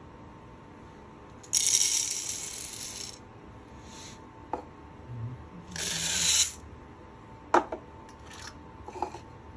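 Green coffee beans pouring into the hopper of a Roast Rite RM-800 moisture and density meter: a rattling rush of beans about a second and a half in, lasting about a second and a half, then a second, shorter rush swelling about six seconds in. Sharp plastic clicks in between and near the end as the hopper parts are handled.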